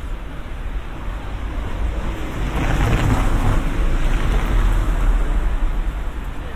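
A vehicle passing along the street: tyre and road noise swells to a peak about halfway through, then eases, over a steady low rumble of wind on the microphone.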